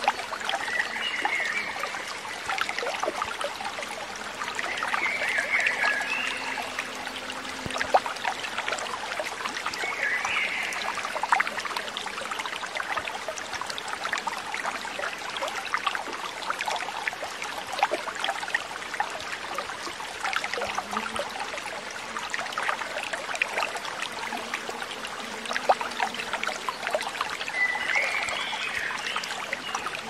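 Shallow water trickling and bubbling over algae-covered rock, a steady running-water sound made up of many small drips and splashes.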